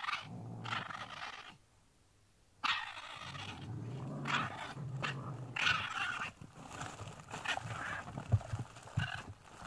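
A run of rough, throaty grunting and chattering calls from an unidentified animal, broken by a short silence about two seconds in. Near the end come two sharp thumps.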